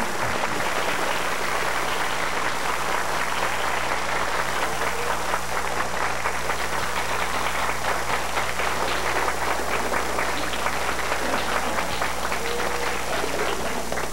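Audience applauding, a dense, even clapping that dies away near the end, over a steady low hum.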